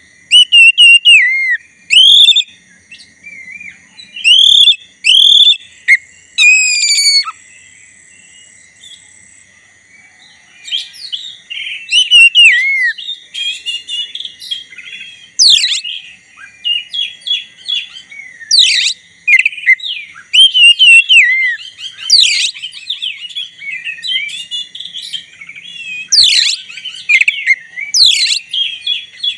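A black-breasted oriental magpie-robin in full, continuous song: loud, varied whistled phrases and sharp downward-sweeping notes. The song pauses for a few seconds about a quarter of the way in, then runs on almost without a break. A faint steady high tone lies underneath.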